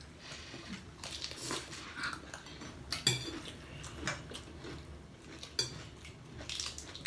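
Cutlery and dishes clinking at the table, a string of separate sharp clinks.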